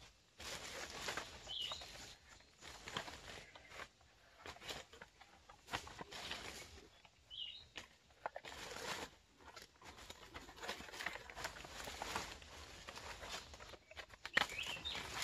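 Quiet, irregular rustling and footsteps on dry leaf litter as bundled cinnamon bark is carried, with three short high bird chirps spread through.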